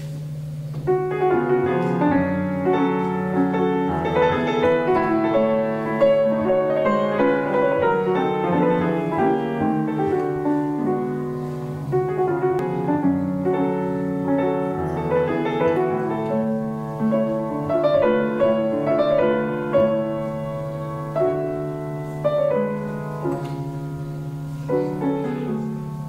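Solo piano playing a classical piece. The notes begin about a second in and stop near the end, over a steady low hum.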